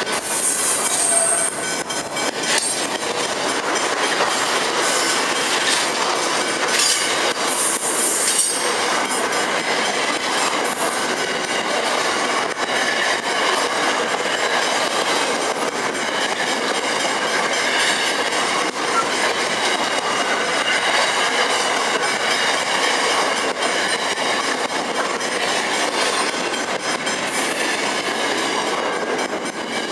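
Loaded freight wagons of a steel train rolling slowly past at close range, their steel wheels clattering over the rail and squealing. Brief high-pitched wheel squeals come about a second in, again around seven to eight seconds, and near the end.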